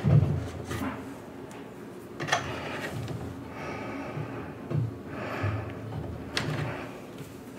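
Handling noise as fingers start small self-tapping screws into the engine mount inside a wooden model airplane fuselage: a thump at the start, then scattered clicks, knocks and rubbing.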